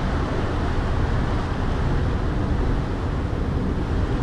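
Ferry underway: a steady low rumble from the boat with the rush of its churning wake water, and wind on the microphone.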